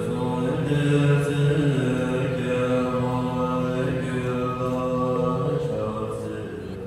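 Buddhist chanting by a group of voices, held notes that step up and down in pitch, fading toward the end.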